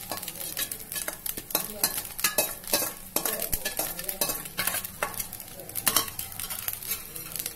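Steel spatula scraping and clinking irregularly against a stainless steel kadai as fried rice and scrambled egg are stirred together, over a low sizzle from the hot pan.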